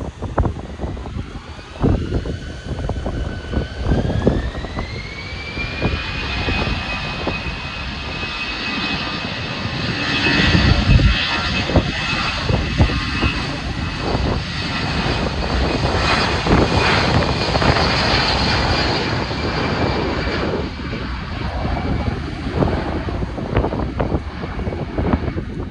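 Airbus A320-216's CFM56 turbofan engines spooling up to takeoff thrust. A whine rises in pitch over a few seconds, then holds steady while the engine noise grows louder through the takeoff roll, with gusts of wind buffeting the microphone.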